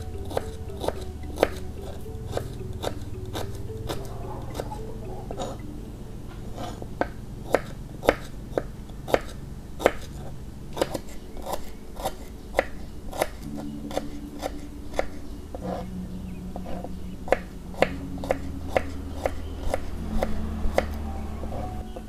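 Kitchen knife slicing shallots and garlic on a wooden cutting board: a run of sharp knocks, about two a second, as the blade strikes the board. Soft background music plays underneath.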